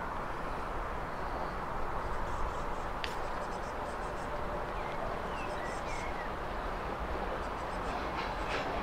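Small birds chirping now and then over a steady low rumble, with a single locomotive running light and approaching from a distance.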